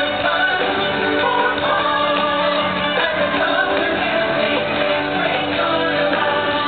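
Upbeat show music with singing, playing steadily for a live costumed dance show.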